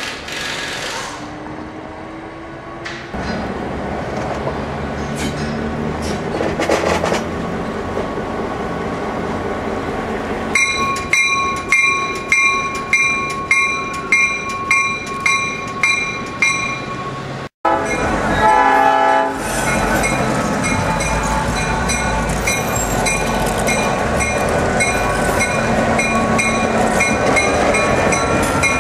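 Diesel locomotive approaching and crossing a road. Its engine runs under a bell ringing about twice a second. Partway through, a short horn blast sounds, the loudest moment, and then the engine's low running sound grows as the locomotive passes close by.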